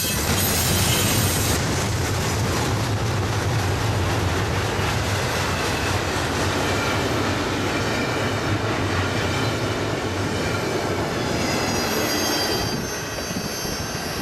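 A train's railcars rolling past close by, a steady loud rumble and rattle over the rails with thin high wheel squeals at times. The rumble eases off about 13 seconds in.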